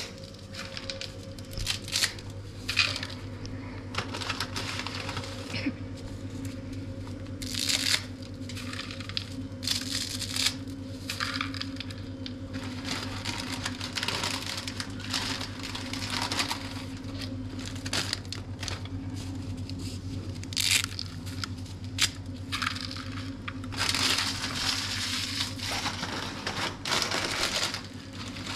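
Irregular rustling and crinkling in short bursts, with a few sharp cracks, over a steady low hum.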